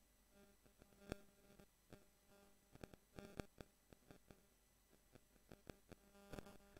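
Near silence: a faint steady electrical hum with scattered soft clicks and crackles.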